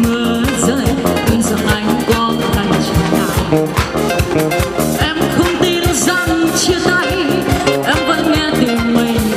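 Live band music: a drum kit keeping a steady beat under electric guitar and keyboard.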